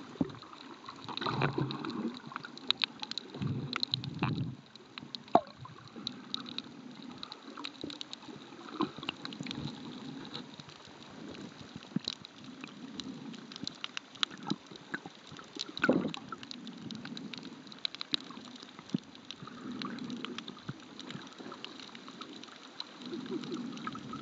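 Underwater sound picked up by a camera held below the surface: water sloshing and gurgling around it in uneven swells, with many scattered sharp clicks and crackles.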